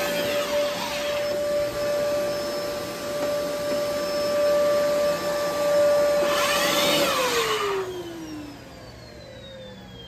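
Fantom Lightning canister vacuum running with a steady motor whine. Its power nozzle brush roll cuts in briefly at the start and again about six seconds in: the nozzle is switching on and off intermittently, a fault the owner puts down to corroded prongs on the wand. About seven seconds in, the motor is switched off and its whine falls away as it spins down.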